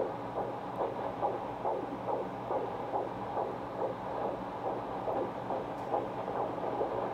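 Fetal heartbeat at 31 weeks picked up by a handheld fetal Doppler: a fast, even pulsing of about two and a half beats a second through the monitor's speaker, over a low hum.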